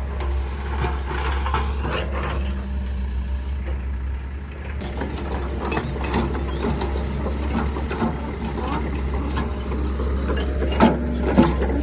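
Backhoe loader's engine running steadily, with clattering and scraping from the machine's work and two sharp knocks near the end. A steady high buzz runs over it and drops out briefly near the middle.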